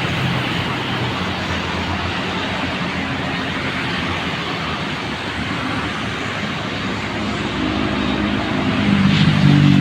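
Road traffic passing steadily, a mix of tyre and engine noise. A vehicle's engine grows louder near the end as it passes close by.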